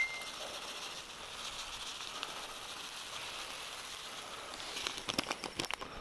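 Okonomiyaki sizzling on a hot iron griddle over charcoal, a steady hiss. Near the end, a run of sharp clicks and taps.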